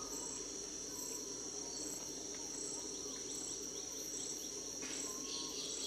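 Tropical forest insects chirring steadily, with a high pulsing call repeating about every half second; a further insect joins near the end.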